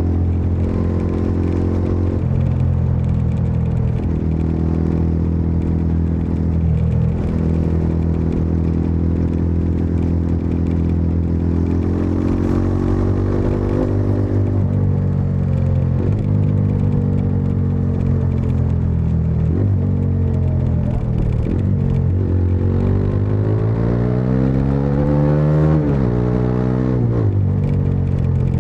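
Bajaj Dominar 400's single-cylinder engine and exhaust under way, holding a steady note for the first ten seconds or so. About twenty seconds in it pulls harder, its pitch rising and dropping back at each upshift, twice.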